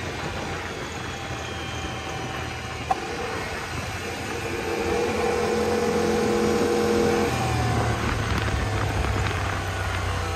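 Turbocharged Yamaha Wolverine RMAX 1000 side-by-side driving on a gravel road as it slows, heard from the seat: wind and tyre noise over the running engine. A steady engine tone holds through the middle, then a deeper rumble takes over.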